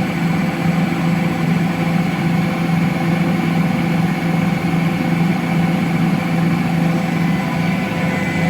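Electrolux CompassPRO WH6-27 commercial washer spinning a duvet at a steady speed, the motor and drum giving an even hum with a steady whine over it.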